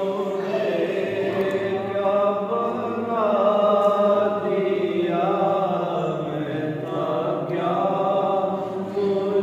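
A man chanting a devotional kalam (manqabat) in honour of Ghous Pak, drawing out long held notes that waver and glide slowly up and down.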